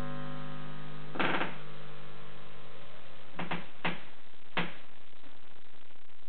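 Portable record player's built-in speaker sounding a held final chord of a record that dies away about three seconds in, over steady hiss. A short noisy burst about a second in, then a few sharp clicks and knocks.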